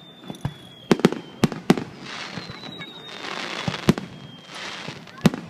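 Fireworks display: a run of sharp bangs from bursting shells, four in the first two seconds and more about four and five seconds in, with stretches of crackling between them. A thin high whistle slowly falls in pitch over it.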